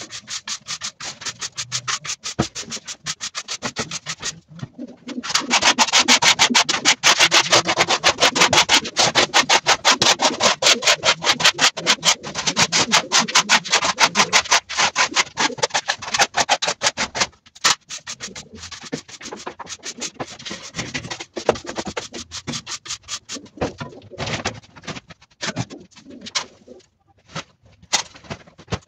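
Rapid, repeated scraping of straw bedding and droppings across a concrete floor, loudest and densest from a few seconds in until past the middle, then thinning to scattered strokes. Pigeons coo.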